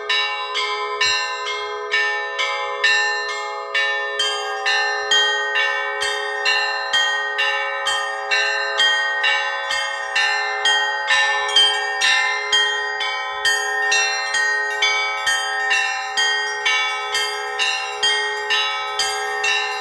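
Russian Orthodox church bells rung in a continuous peal (zvon). Bells are struck in a quick, steady rhythm of about two strokes a second, and their tones ring on and blend together.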